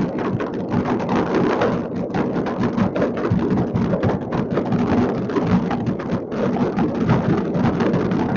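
Many fireworks going off at once across a city: countless distant bangs and crackles overlapping into a continuous rumbling, rain-like crackle, with no let-up.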